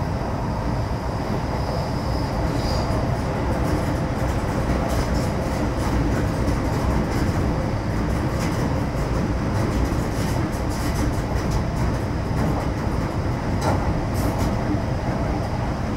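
MTR Metro Cammell M-Train electric multiple unit with GEC GTO chopper traction, heard from on board while running between stations: a steady rumble of wheels on track with scattered short clicks.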